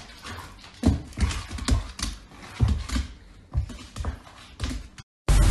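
A dog's short, sharp vocal sounds, repeated about two a second, breaking off suddenly near the end.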